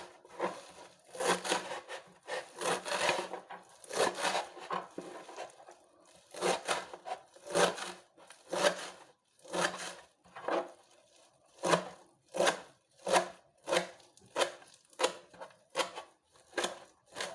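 Salad vegetables being chopped by hand with a knife on a cutting board: a run of sharp knocks, quick and uneven at first, settling in the second half into separate, even strokes about one and a half a second.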